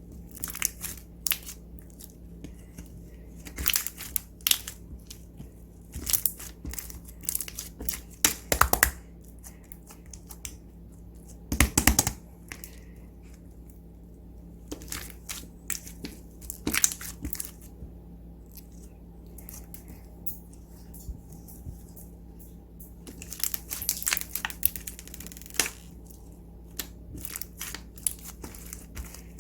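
Slime being kneaded and stretched by hand, giving irregular clusters of crackling, popping and tearing sounds with short quiet gaps between them.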